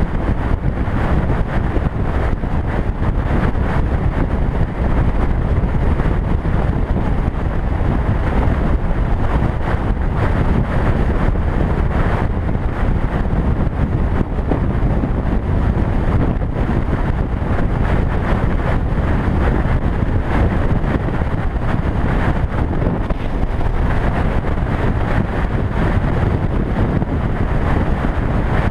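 Wind buffeting the microphone of a camera on a motorcycle cruising at road speed, a steady rumble with the engine and road noise mixed in underneath.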